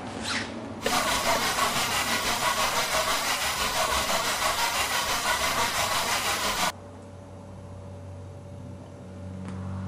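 A loud, rough, machine-like noise dubbed in as a sound effect, starting abruptly about a second in and cutting off suddenly near seven seconds, with faint room tone either side.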